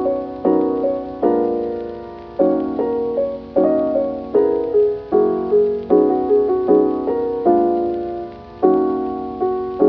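Background piano music: a calm melody over chords, each struck sharply and then dying away, about one a second.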